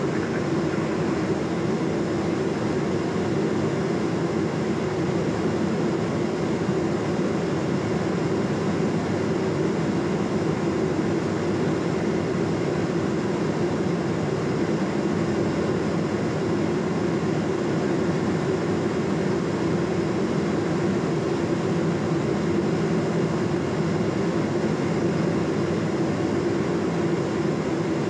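Steady drone of a Cessna P210 Centurion's turbocharged six-cylinder engine and propeller, heard from inside the cabin in flight.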